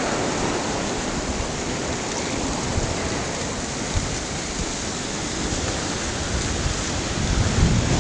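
Slushy river ice floes drifting together, rubbing and grinding against one another in a steady rustling hiss. Wind starts to rumble on the microphone near the end.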